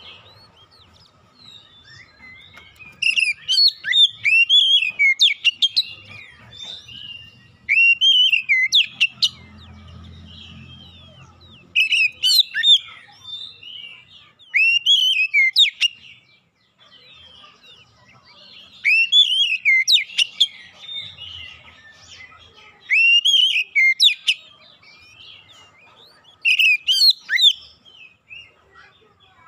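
Oriental magpie-robin (kacer) singing: loud phrases of fast whistles, slurred notes and chirps, each one to three seconds long, repeated with pauses of a few seconds between them.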